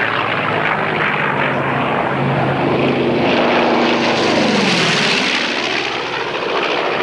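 North American B-25 Mitchell's two Wright R-2600 radial engines at high power in a very low, fast pass. The engine note is steady at first, grows brightest about four to five seconds in, then drops sharply in pitch as the bomber goes past.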